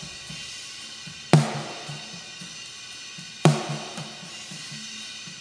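Snare drum channel of a drum recording played through a mixing console, with its high-pass filter being swept up to thin out the lows. Two sharp snare hits come about two seconds apart, one about a second in and one past halfway, each with a short ring. Faint spill from the rest of the kit sounds between them.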